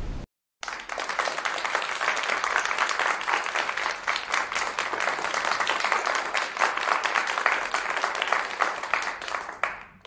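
Steady brown noise cuts off just after the start, and after a brief silence an audience breaks into dense applause, many hands clapping at once, which fades out near the end.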